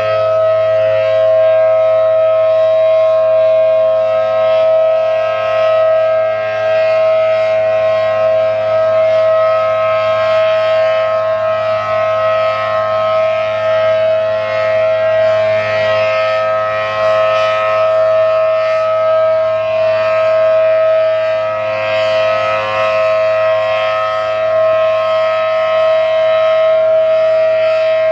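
ACA Allertor 125 outdoor warning siren, a 10/12-port model sounding a chord of two steady tones, running the steady alert warning signal. The level rises and falls slightly as the rotating siren head turns.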